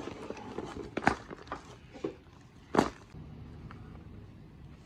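Handling sounds from electrical parts and their packaging on a workbench: a few sharp clicks and taps, the two loudest about a second and nearly three seconds in.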